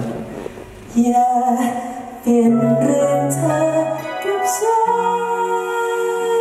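Live pop band: a male singer singing into a microphone over electric guitar, in a slow song. After a brief lull the sung phrases start about a second in, and from about five seconds in held notes ring on steadily.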